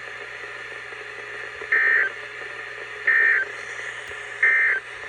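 NOAA Weather Radio Emergency Alert System data tones: three short, identical bursts of warbling digital data about 1.4 s apart, over a steady radio hiss. This is the end-of-message (NNNN) code that closes an alert broadcast.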